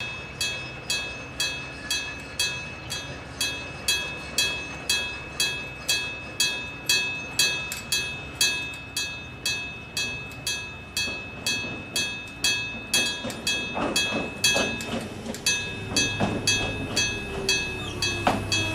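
Level crossing alarm ringing steadily about twice a second, each strike dying away. In the last few seconds an electric railcar pulls in alongside, adding knocks from its wheels over the rail joints, a low hum and a short falling wheel squeal.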